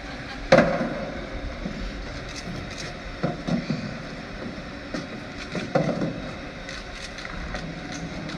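Shipyard hall background: a steady low rumble with several sharp knocks, the loudest about half a second in and ringing briefly, and smaller ones about three and a half and six seconds in.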